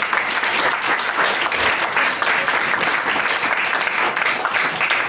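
Audience applauding, many people clapping together at the end of a talk.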